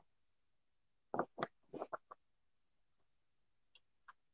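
A quick run of six or so faint key clicks about a second in, then two more near the end, as a price is looked up on a computer keyboard; otherwise quiet room tone.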